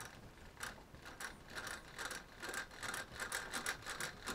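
Wavelength drive of a spectrometer's monochromator clicking as the wavelength control is turned: a few scattered clicks, then a quicker run of small clicks, several a second, from about a second and a half in.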